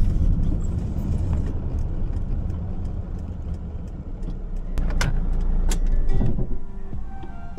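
Converted Mercedes Sprinter ambulance van driving, a low rumble of engine and road noise that eases off over the seconds, with two sharp clicks about five seconds in. Music comes in near the end.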